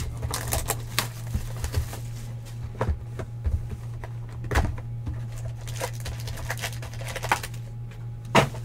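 Handling noises as a sealed box of football trading cards is cut open with a folding knife and unpacked: scattered clicks, rustles and knocks, the loudest about four and a half seconds in and near the end, over a steady low hum.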